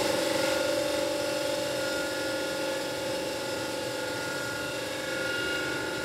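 Electric vacuum pump running with a steady hum, drawing suction through an airplane-style vacuum toilet.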